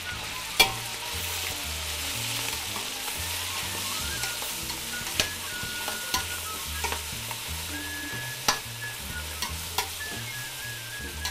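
Cubes of beef sizzling in butter and fat as they are seared brown in a stainless steel pot and stirred, with a few sharp knocks against the pot.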